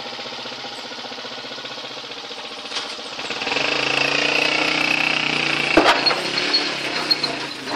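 Motorcycle engine driving a rope hoist. It runs steadily at first, then gets louder from about three seconds in, with a high whine, as the load is pulled up. A single sharp knock comes a little before the end.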